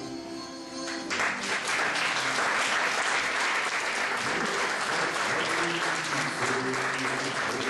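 Audience applauding, breaking out about a second in as the closing music ends and continuing steadily, with music still faintly underneath.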